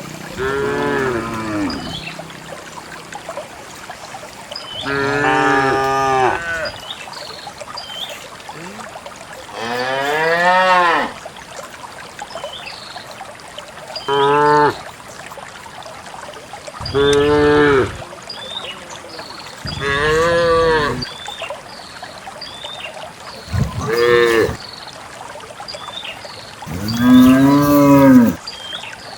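Cows mooing, about eight separate calls from the herd spaced a few seconds apart, each lasting from about half a second to two seconds and rising then falling in pitch.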